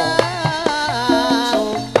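Javanese gamelan playing for tayub dance, with a woman singing a wavering, held melody over it and hand-drum strokes marking a steady beat.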